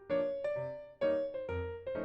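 Background music: a bouncy piano-like keyboard melody with notes struck about twice a second.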